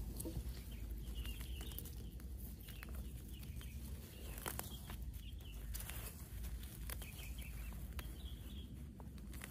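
Outdoor ambience: short bird chirps every second or two over a steady low rumble, with faint scattered clicks.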